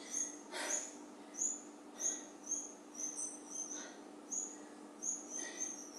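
A small bird chirping: short, high-pitched chirps at irregular spacing, some in quick runs, over a faint steady low hum.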